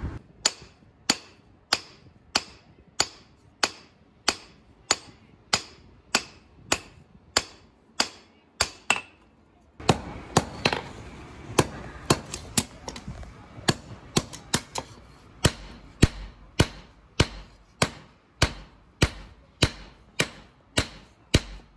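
Hand hammer forging a red-hot knife blade of aircraft bolt steel on a steel anvil block: sharp metallic blows in a steady rhythm of about one and a half a second. The blows pause briefly about nine seconds in, then resume over a steady rushing noise.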